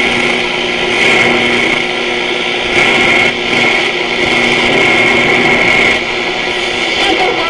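Frhan RC 300 table radio being tuned across the dial: loud static and whistling tones with garbled broadcast sound between stations.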